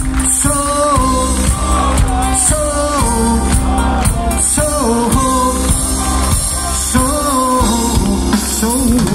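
Live band music with a singer's voice carrying a melody of held notes that bend and slide, over a steady low bass and drums.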